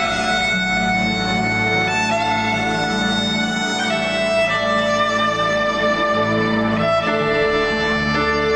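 Amplified violin playing long held notes that change every second or two, over a steady low drone.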